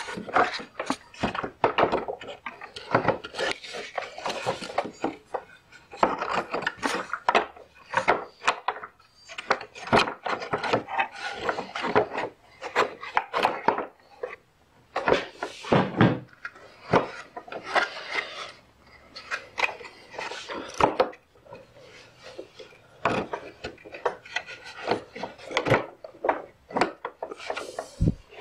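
Irregular scraping, rubbing and clicking as a push mower's front axle is worked by hand into its 3D-printed plastic bracket, with short knocks in between.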